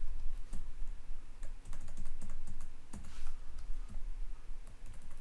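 Computer keyboard keys clicking in an irregular run of keystrokes as lines of text are deleted in a text editor.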